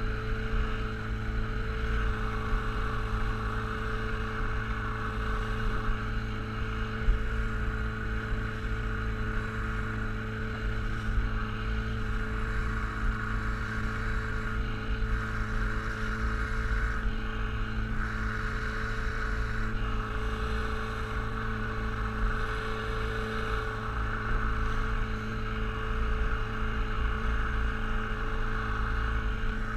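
Outboard motor on a small open boat running at a steady cruising speed, with water rushing and splashing along the hull.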